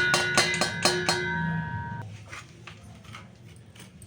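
A steel sieve knocked rapidly, about five taps a second, to sift ground spice powder, each metallic tap ringing. The tapping stops after about a second, the ring dies away, and only faint light taps follow.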